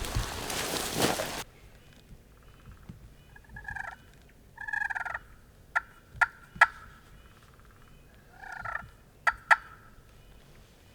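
Wild turkeys gobbling: three falling, rattling gobbles, the first two close together and the third about four seconds later, with sharp, loud short calls in quick runs of three and then two between and after them. A burst of noise fills the first second and a half.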